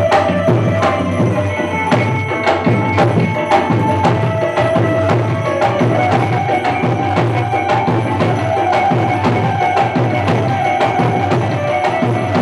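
Music with a quick, regular hand-percussion beat under a held melody line.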